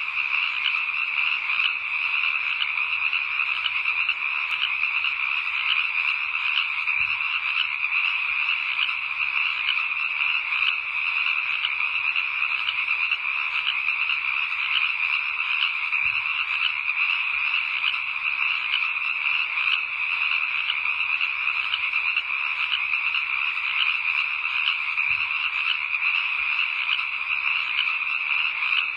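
A dense, steady chorus of frogs calling together, a continuous night-time ambience with a fast, even pulse.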